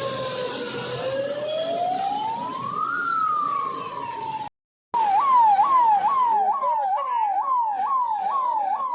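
Emergency vehicle siren: a slow wail that falls, rises and falls again, then, after a brief cut, a fast yelp of about two sweeps a second.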